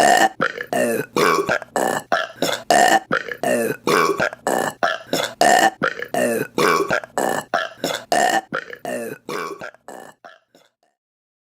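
A long run of short burps, about three a second, in an evenly repeating pattern that fades and stops about ten seconds in.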